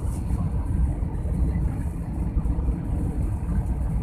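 Jet airliner cabin noise on low approach to landing: a steady low rumble of engines and airflow heard from a window seat.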